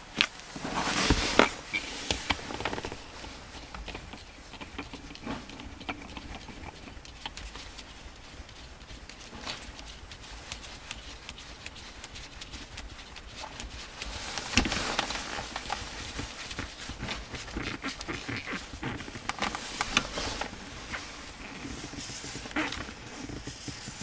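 Scattered clicks, taps and rustling of hands working on a manual gear shift knob and its plastic shift-pattern cap with a small tool, busiest about a second in and again around two-thirds of the way through.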